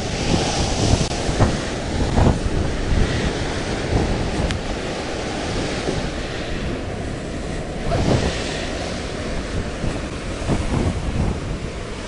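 Heavy storm surf crashing and churning on rocks below, a steady rushing roar, with strong wind buffeting the microphone. The roar swells near the start and again about eight seconds in.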